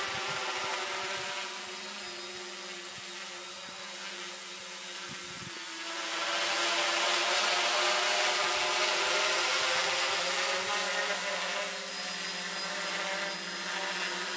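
S500 quadcopter's brushless motors and propellers buzzing in flight, a steady whine of several tones that shift slightly in pitch. It grows louder about six seconds in as the drone comes back overhead under automatic return-to-home.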